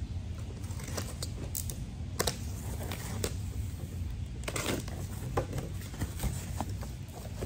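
A box cutter slitting the packing tape along the seam of a large cardboard box, with short scrapes, clicks and tearing of tape and cardboard as the flaps are worked open, over a steady low hum.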